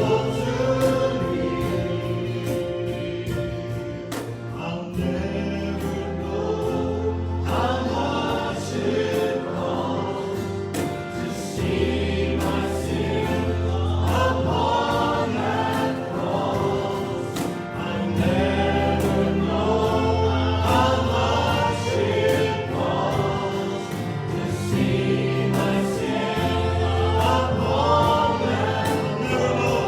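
Worship music: a group of voices singing a song together over a band, with a sustained bass line and regular percussion strikes.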